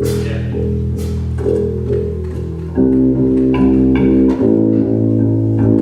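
Electric bass guitar played through the PA for its sound check, holding low sustained notes; about three seconds in it gets louder and fuller.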